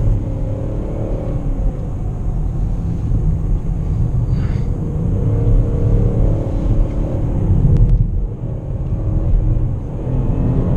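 The 2018 Cadillac XTS's naturally aspirated 3.6-litre V6 heard from inside the cabin, over steady road rumble, as the car gathers speed. The engine note climbs, dips briefly about eight seconds in, and then climbs again.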